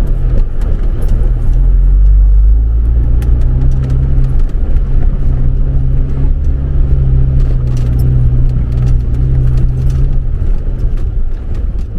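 A vehicle engine running steadily as a low drone, with scattered light clicks and rattles over it.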